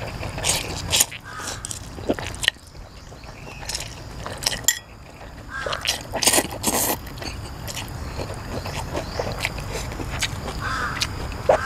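Close-up wet slurping and chewing of noodles, with the loudest slurps about six to seven seconds in. A bird calls a few times in the background.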